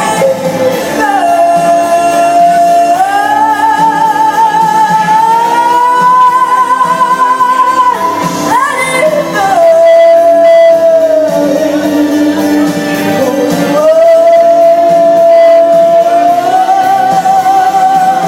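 A woman singing long, held high notes with vibrato over backing music, the pitch stepping up and down between sustained notes.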